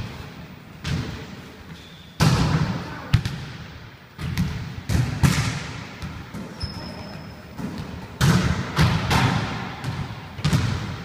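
Volleyballs being hit by hand and bouncing on a wooden gym floor: irregular sharp smacks and thuds, sometimes two close together, each echoing in the hall. A brief high squeak about two-thirds of the way through.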